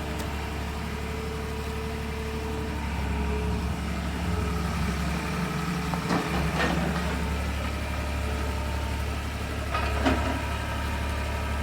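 Skid steer engine running steadily with a low hum, with a couple of brief knocks about six and ten seconds in.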